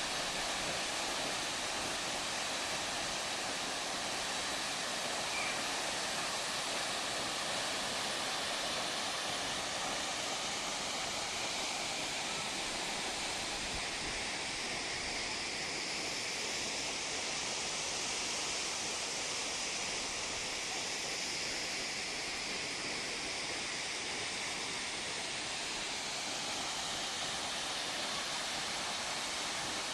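Steady rushing roar of a large waterfall, water pouring and crashing without a break.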